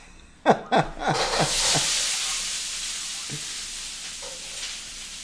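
Food sizzling in a hot frying pan, starting abruptly about a second in and slowly dying down. It is preceded by a few quick falling squeaks.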